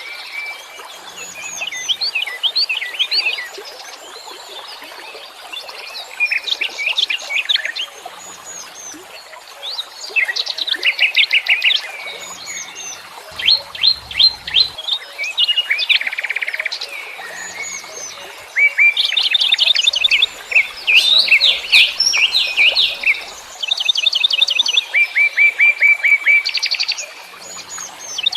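Wild songbirds chirping, with rapid trills of short, high notes coming in repeated bursts and several birds calling over one another.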